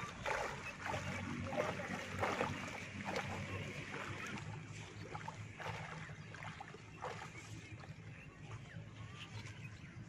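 Water sloshing and splashing in rhythm with the strides of a person wading waist-deep through floodwater. The strokes are loudest in the first few seconds and grow fainter.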